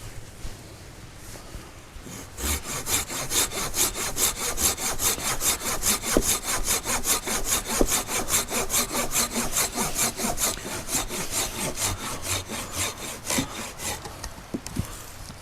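Hand saw cutting through wood for firewood in quick, even back-and-forth strokes, starting about two seconds in and stopping shortly before the end.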